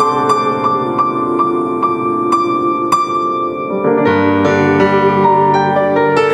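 Instrumental break in a slow pop ballad: a keyboard piano plays evenly repeated notes, about three a second. Fuller chords with a low bass come in about four seconds in.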